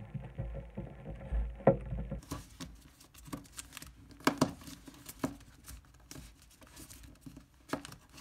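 Thin origami paper crinkling and rustling under the fingers as it is creased, pressed flat and locked together, with many short, irregular ticks and taps.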